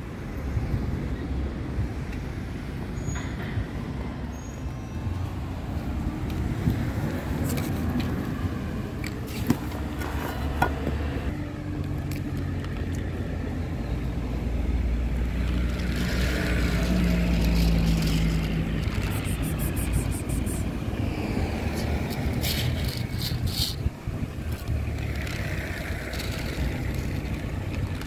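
Road traffic rumbling steadily, swelling as a vehicle passes a little past halfway through.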